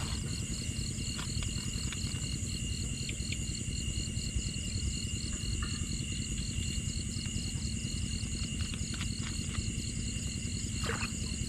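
Night insects chirping: a high, evenly pulsed chirp over a steady high drone, with a few faint clicks from hands working in the grass.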